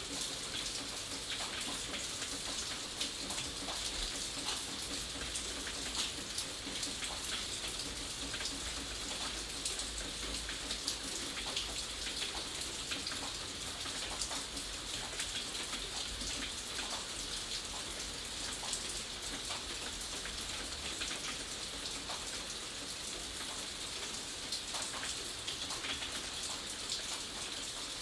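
Steady rainfall: an even hiss of rain dotted with many individual drops ticking on a surface.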